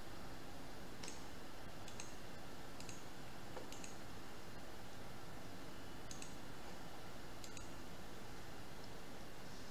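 Faint computer mouse clicks, about six spaced a second or more apart, over a steady hiss.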